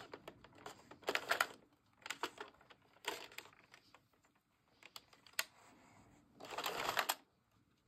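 Light plastic clicks and taps of a yarn needle and stitches coming off the red plastic needles of an Addi circular knitting machine, in small irregular clusters, with a longer rustle near the end.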